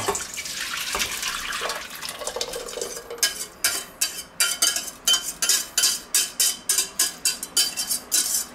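Thick sauce pouring from a stainless steel saucepan into a tall steel pot. About three seconds in, a utensil starts scraping and knocking against the inside of the saucepan in quick strokes, about two a second, to get the last of the sauce out.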